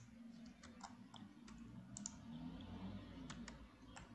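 Faint, irregular clicks of a computer mouse and keyboard, some in quick pairs, over a low hum.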